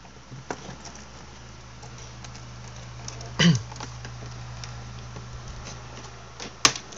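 Small clicks and rattles of a monitor video cable being worked loose and pulled out of a laptop's port, with a louder knock about three and a half seconds in and a sharp click near the end.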